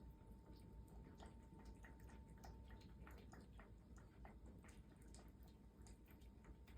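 Cats eating: faint, irregular small clicks and crunches, several a second, from chewing and food knocking against the bowls.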